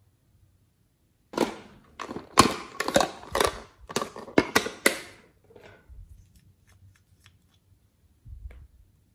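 Stiff plastic moulds handled and flexed in the hands, a quick run of sharp clicks and crackles lasting a few seconds as the clay is worked out of them, followed near the end by a soft thump.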